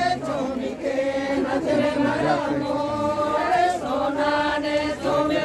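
A group of women singing a traditional Adivasi wedding song together in long, held, chant-like notes, the song that accompanies the bride and groom's pheras.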